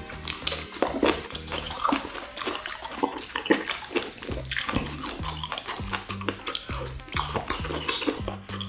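Close-up wet chewing and lip-smacking of spicy stir-fried webfoot octopus and beef large intestine, with sticky clicks and smacks coming thick and fast and wooden chopsticks tapping the pan.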